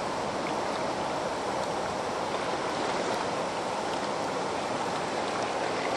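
Steady rush of river water flowing below a dam: an even, unbroken hiss.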